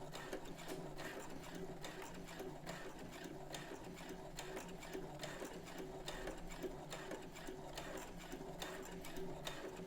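Brother CS7000X computerized sewing machine stitching a seam through fabric, running steadily: a motor hum with a regular light ticking of the needle strokes.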